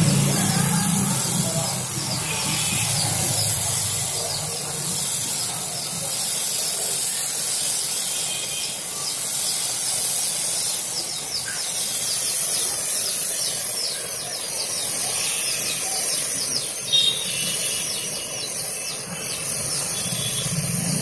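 Compressed-air spray gun hissing steadily as it sprays a glaze finish coat onto a wooden door.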